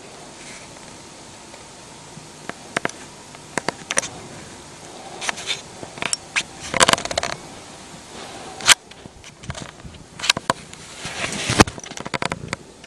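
Close rustling and scraping of a duvet with sharp clicks and crackles, handling noise right at the microphone as a cat moves about on the bed and pushes against the camera.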